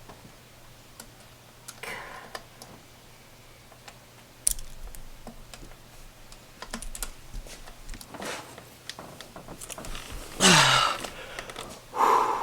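Hand tools clicking and clinking irregularly on metal while the last bolt holding the supercharger is worked loose. A louder burst of noise comes about ten seconds in, and another near the end.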